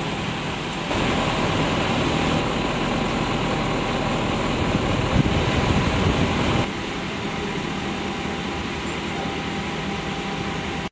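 Steady idling engine and street noise with a low, even hum. It steps louder about a second in and drops back shortly before seven seconds in.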